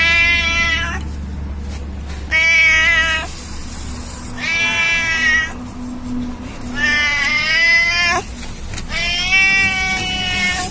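Domestic cat meowing over and over: five long meows, one about every two seconds, each lasting around a second.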